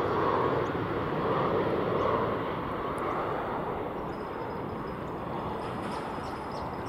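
Jet engines of a Virgin Australia Boeing 737-800 on final approach, a steady rumble and hiss that slowly fades as the aircraft flies away.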